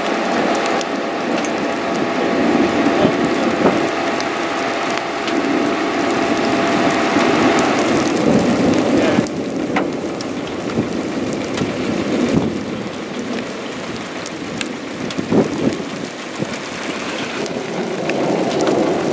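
Steady rushing noise of rain and wind, with scattered crackling clicks. It dips briefly about nine seconds in.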